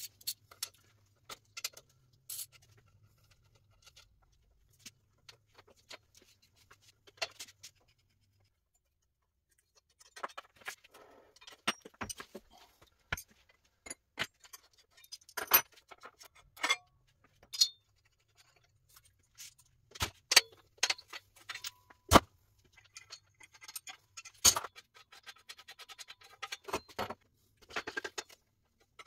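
Scattered metal clicks, clinks and knocks of hand tools on bicycle parts as an old bike's front end is taken apart in a repair stand. The sound is sparse at first, with a quiet gap about a third of the way in, then denser clinking with several sharper knocks.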